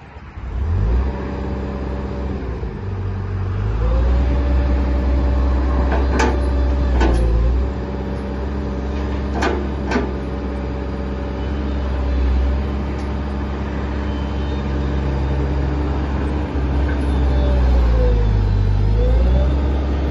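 Komatsu PW130ES wheeled excavator's diesel engine running, its note dipping and coming back up several times as the hydraulic boom is worked. Two pairs of sharp knocks sound about six and ten seconds in.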